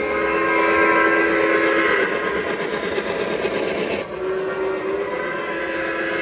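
Lionel O-gauge model steam locomotive's onboard sound system blowing a multi-note chime steam whistle in long held blasts. One blast ends about two seconds in, and another starts about four seconds in, over the steady running noise of the engine.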